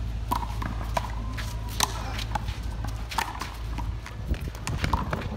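A rubber handball smacking against concrete walls and court in a fast rally, with sharp irregular smacks about every half to one second. Sneakers squeak and scuff on the concrete as the players run.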